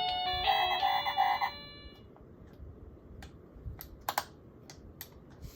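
A short phrase of background music with bright sustained melody notes ends about a second and a half in and rings away. It is followed by low hiss and a few scattered faint clicks.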